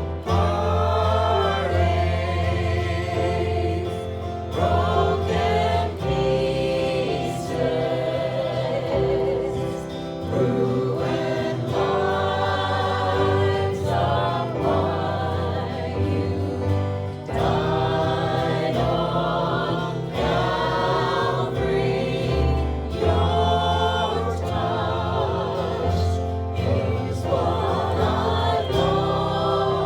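A choir singing a gospel hymn over an instrumental accompaniment with a strong bass line.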